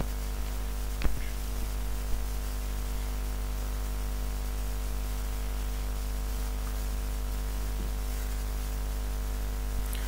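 Steady electrical mains hum, a stack of low even tones over a faint hiss, with a couple of small clicks about one and two seconds in.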